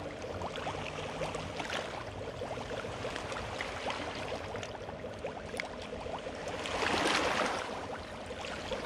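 Lake water lapping and sloshing at the water's edge, with many small ticks and clicks and a louder wash about seven seconds in.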